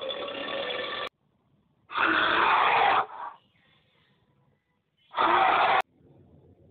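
Animal sound effects for an alligator and a bear: a clip that cuts off suddenly about a second in, then two loud, rough animal calls, one about a second long and a shorter one near the end.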